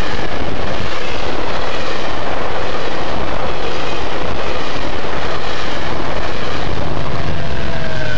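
GO Transit bilevel passenger coaches passing close by at speed: a loud, steady rush of wheels on rail. Near the end a faint tone falls in pitch.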